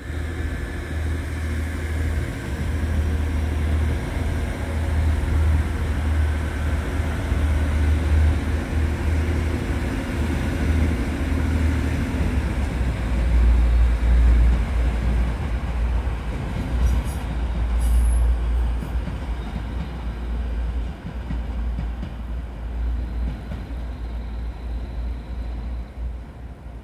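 A train running through a station: a continuous heavy low rumble with an engine-like hum, loudest about halfway through. There is a brief high squeak about two-thirds of the way in.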